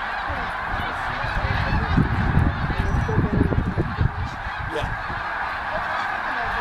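A huge flock of snow geese calling in flight, a dense, unbroken din of many overlapping honks. A low rumble underneath swells about two seconds in.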